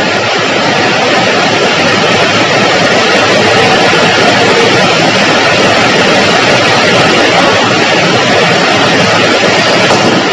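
Heavy rain falling: a loud, steady hiss.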